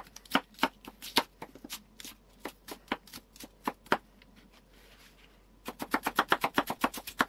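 Chef's knife slicing an onion into half rings on a wooden cutting board. Scattered knife taps at first, a short pause about halfway, then a quick, even run of strokes, about six a second, near the end.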